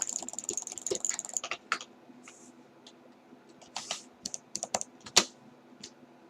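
Clicking: a fast run of clicks over a faint high whine for about a second and a half, then scattered single clicks, the sharpest about five seconds in.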